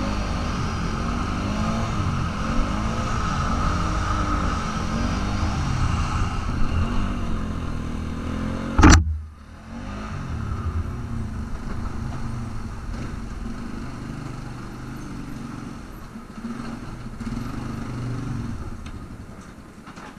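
Polaris Sportsman 550 ATV's single-cylinder engine running, its pitch rising and falling with the throttle. About nine seconds in there is one sharp, loud knock, after which the engine runs quieter.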